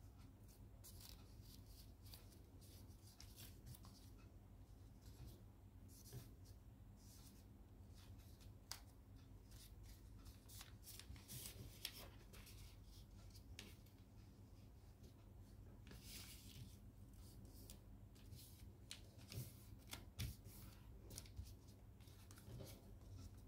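Faint crinkling and rustling of origami paper being folded and creased by hand, with scattered short crackles, over a low steady hum.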